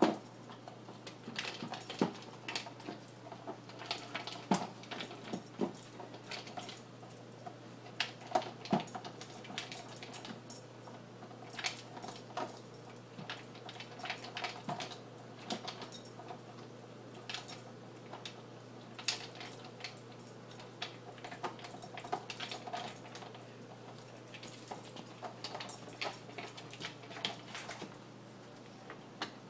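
A dog working a plastic slow-feeder bowl with its snout, nudging the turning lid to reach the kibble: irregular clicks, knocks and rattles of plastic on the bowl and floor, over a steady low hum.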